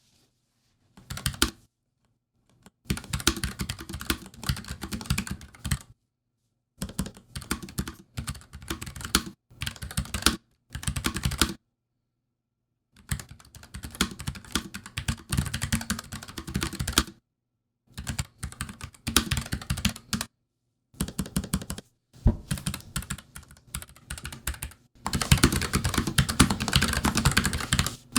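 Typing on a NuPhy Air75 slim mechanical keyboard with Gateron low-profile red switches and PBT keycaps. It comes as runs of rapid key clicks broken by short pauses, with the fastest and loudest run near the end.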